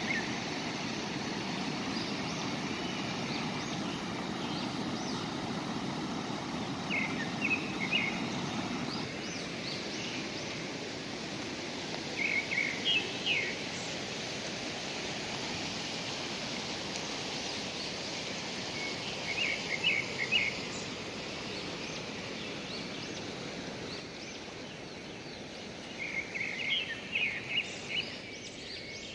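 Steady rushing of a fast-flowing river over rapids, with a bird calling a short burst of quick chirps four times.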